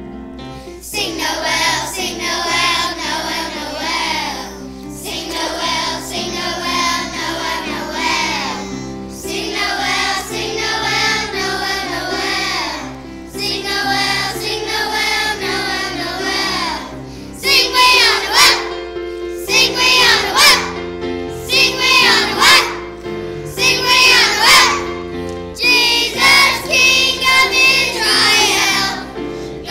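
Children's choir singing a song over an instrumental accompaniment, in phrases of about four seconds. About two-thirds of the way in, the singing becomes louder and more clipped, in short punchy notes.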